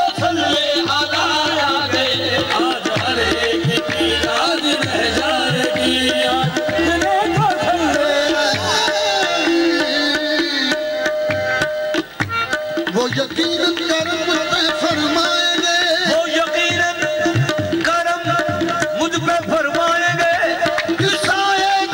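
Live qawwali music: harmoniums holding chords, a qawwal singing over them, and hand drums keeping a steady beat, with a brief drop in the music about halfway through.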